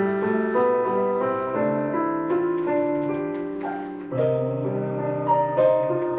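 A piano playing a slow passage of held chords under melody notes, with a new note or chord about every half second.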